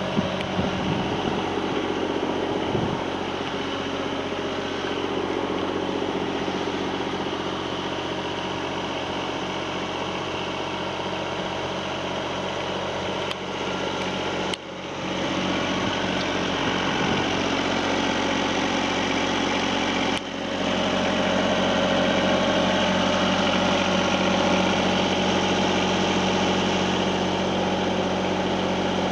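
Yanmar ViO20-3 mini excavator's three-cylinder diesel engine idling steadily.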